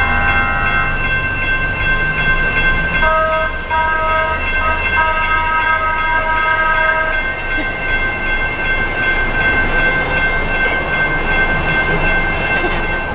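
Horn sounding two long blasts, a short one and a long one over a steady low rumble, with steady high ringing tones throughout.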